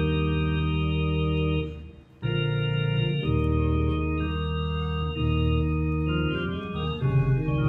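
An organ plays held chords as the opening of a hymn. There is a short break after the first chord, about two seconds in, and then the chords move on.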